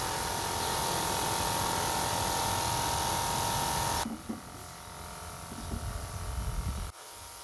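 Electric misting pump running with fine mist spraying from a line of misting nozzles: a steady hiss with a steady whine over it. About four seconds in, the sound drops abruptly to a quieter hiss.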